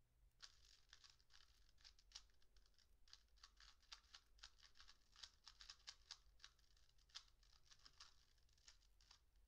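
Faint, rapid, irregular clicking and rattling of a Rubik's cube being turned.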